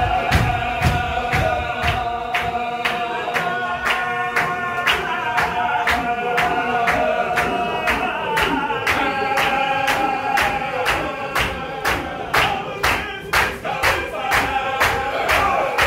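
Men's voices chanting together in a Qadiri Sufi zikr, a long held sung line over a sharp rhythmic beat kept about three times a second.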